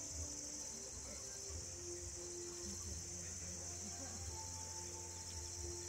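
Steady, high-pitched chorus of insects, crickets by its even drone, with a faint low rumble underneath.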